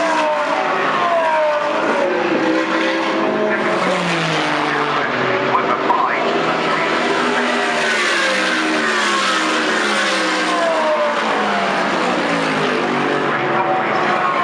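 GT3 race cars passing one after another at racing speed. Their engine notes overlap and fall in pitch again and again as each car goes by.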